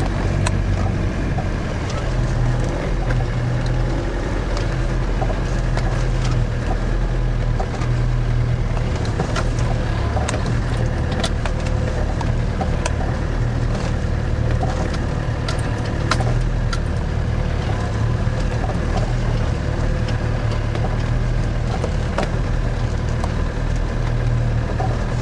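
Land Rover Defender 90's 300Tdi four-cylinder turbodiesel engine running steadily at low speed, heard from inside the cab, with scattered clicks and knocks from the vehicle jolting over a rough track.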